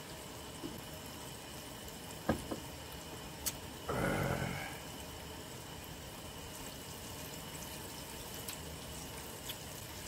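Faint steady hiss from a pot of hot frying oil, with a couple of small clicks and a short noisy rustle about four seconds in.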